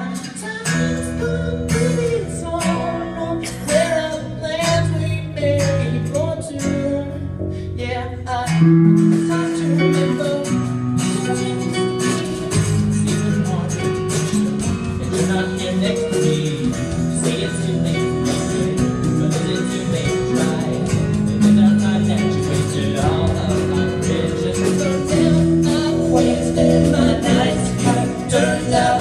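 A man singing into a microphone while strumming chords on a guitar, a live solo performance.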